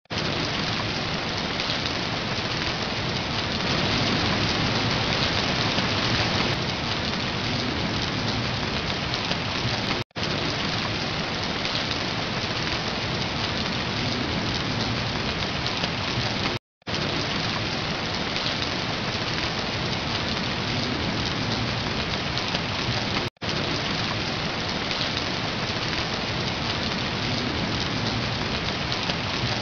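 Steady heavy rain, a dense even hiss of falling water, with three brief dropouts to silence where the track is spliced.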